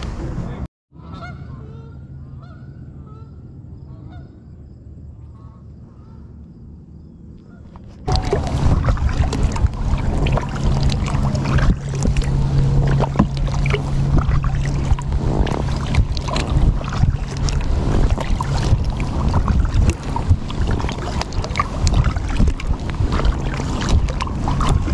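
Geese honking, a series of repeated calls lasting several seconds. About eight seconds in this gives way to loud wind noise on the microphone and the splashing strokes of a kayak paddle.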